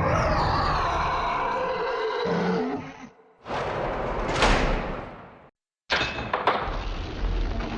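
Horror sound effects: a low, beast-like roar with gliding pitch fades out, then a rushing noise swells and dies away. After a brief dead silence, a new effect begins with a few sharp knocks.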